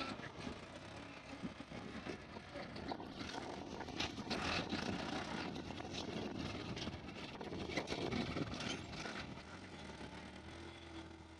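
Tractor engine running steadily under load as it ploughs terraces along the contour of the field.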